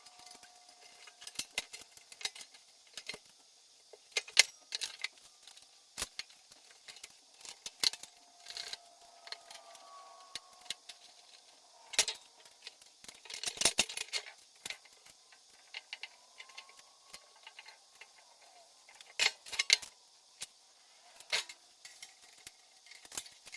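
Irregular clicks, clinks and knocks of parts of a power tool organizer shelf being handled and fitted together during assembly. A cluster of quick knocks comes about halfway through, and another near the end.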